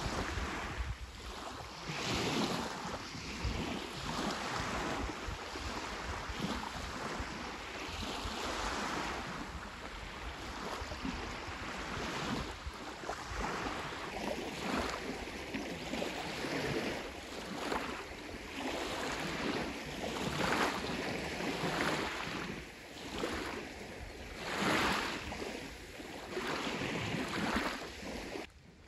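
Small sea waves breaking and washing up a shelly beach in repeated surges every second or two, with wind rumbling on the microphone. The sound drops away abruptly near the end.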